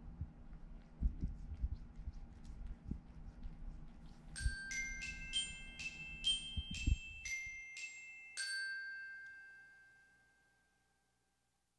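A short glockenspiel-like chime melody of about eight struck notes, the last one ringing out and fading away. Under the first half, close low rumbles and soft clicks from a cat licking at a hand.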